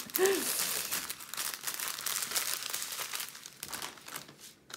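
Crinkling and rustling of small plastic bags of diamond painting drills being handled and squeezed back into their packet. The rustling dies down shortly before the end.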